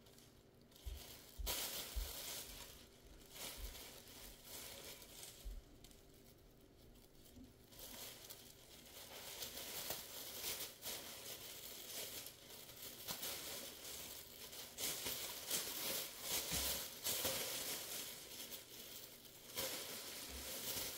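Faint, irregular rustling and handling noises with a few light knocks, swelling and fading.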